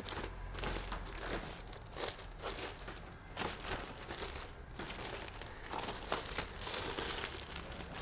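Thin plastic bag crinkling and rustling as it is pulled off and handled, with irregular crackles throughout.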